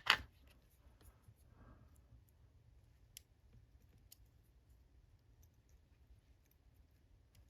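Small metal parts of a padlock's pin-tumbler cylinder being handled while a shim is worked in: one sharp click at the start, then scattered faint ticks and taps.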